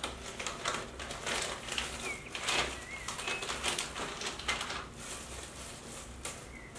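Plastic packaging of frozen plain pancake wrappers rustling and crinkling as it is handled and a wrapper is pulled out, fading over the last couple of seconds. A few short high chirps sound in the background.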